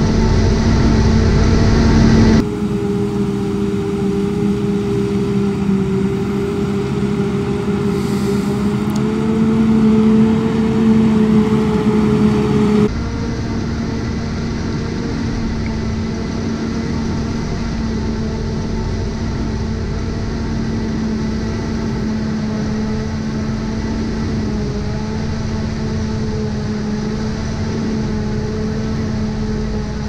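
Steady machine hum with a low pitched drone, changing abruptly twice, about two seconds in and again about halfway through.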